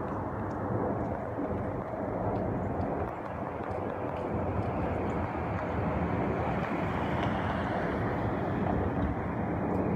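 Steady engine noise of a jet airliner on its arrival, holding at an even level.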